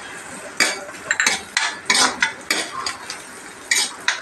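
Steel ladle scraping and clinking against an iron kadai while stirring onions frying in oil. The strokes are irregular, one every few tenths of a second, and begin a little over half a second in.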